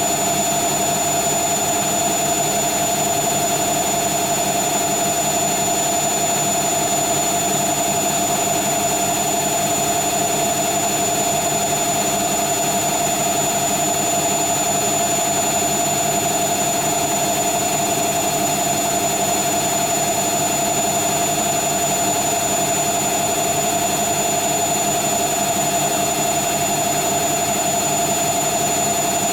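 Hoover Nextra HNL71463D washing machine spinning at a steady high speed in its 1400 rpm final spin: a constant whine over an even rush, with no change in speed.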